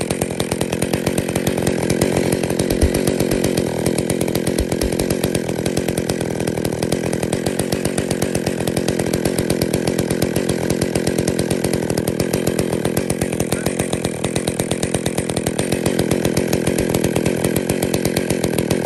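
Old Stihl two-stroke chainsaw idling steadily at about 2,500 rpm. At that speed its centrifugal clutch is already starting to engage and turn the chain, well below the 3,500 rpm where engagement should begin: the fault of a chain spinning at idle.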